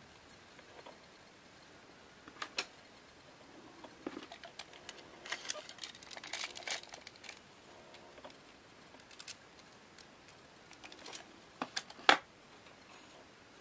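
Light handling noises from carbon fishing-rod pieces being picked up, fitted and set down on a wooden table: scattered small clicks and taps, a short run of scraping and rustling in the middle, and one sharper click near the end.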